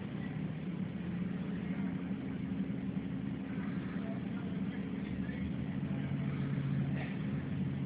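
Heavy engine running steadily with a low, even hum made of several steady tones; the tones shift slightly about six seconds in.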